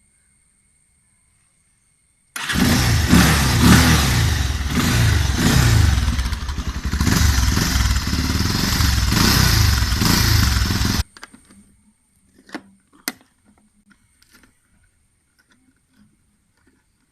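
Bajaj Pulsar 220 single-cylinder motorcycle engine, fitted with a K&N air filter, running loudly with its pitch rising and falling several times as it is revved. It starts suddenly about two seconds in and cuts off suddenly some eight seconds later, followed by a few faint clicks.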